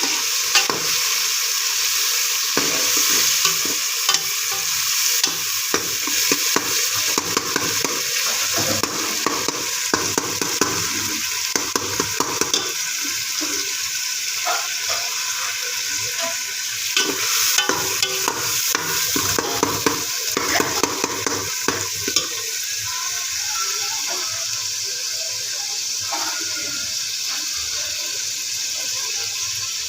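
Okra (bhindi) sizzling as it fries in hot oil in a pan, with a spatula stirring it and knocking against the pan in frequent irregular clicks.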